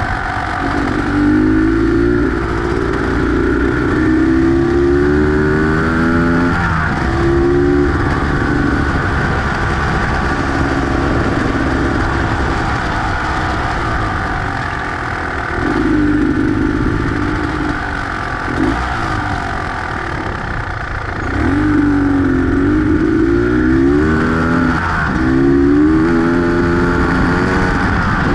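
Beta X-Trainer 250's two-stroke single-cylinder engine accelerating again and again while the motorcycle is ridden: the note rises, drops back at each gear change and climbs again, several times over, with a steady low rumble underneath.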